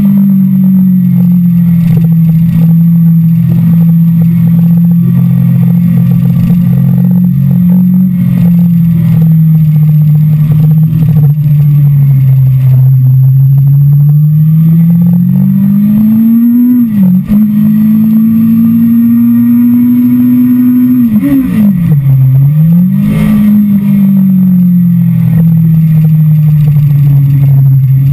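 Onboard sound of a Kawasaki sport motorcycle's engine under way, with wind rush over the microphone. The engine note holds fairly steady, then twice in the middle rises and drops sharply as the rider works the throttle and gears, and settles to a lower steady pitch near the end.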